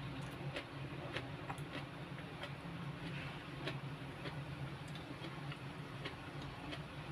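Chewing: irregular small wet clicks and smacks of a mouth working on a mouthful of rice and greens, a few a second, over a steady low hum.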